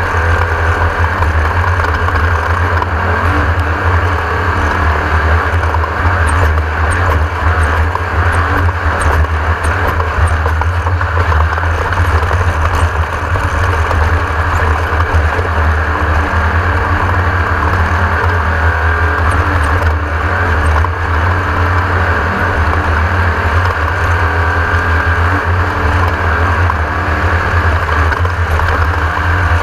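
Class 1600 off-road race buggy's air-cooled Volkswagen 1600 cc flat-four engine running steadily under race load, a deep drone with a constant rushing noise over it.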